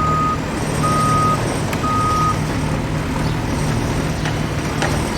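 Truck's reversing alarm beeping about once a second over its running engine. The beeping stops a little over two seconds in, and the engine keeps running with a few scattered knocks.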